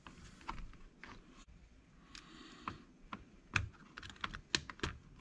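Small plastic parts of a Latrax Teton RC car's rear suspension clicking and tapping as the arms, hinge pin and spacer are fitted by hand: scattered light clicks, with a few sharper ones in the last second and a half.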